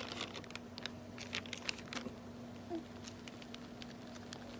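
Faint, scattered crinkles and ticks as an MRE food pouch is slid out of its paper heater bag and handled, more of them in the first two seconds. A faint steady hum runs underneath.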